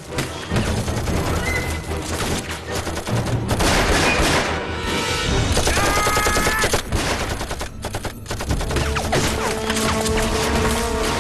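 Dense battle gunfire: rapid machine-gun bursts mixed with rifle shots and bullets passing by, with a film score playing underneath.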